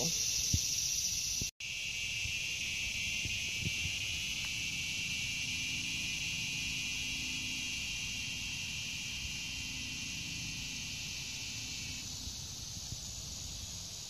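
Steady, high-pitched chorus of insects singing, dropping out for an instant about one and a half seconds in.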